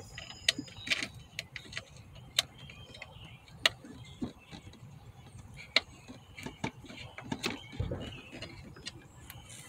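Irregular light clicks and ticks of a small screw being started by hand into a plastic tail light housing, with one dull low thump about eight seconds in.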